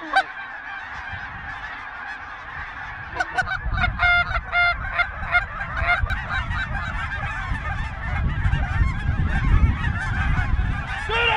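A large flock of snow geese calling overhead: a dense, continuous chorus of honks. A few louder single honks stand out about four seconds in, and a low rumble runs underneath from then on.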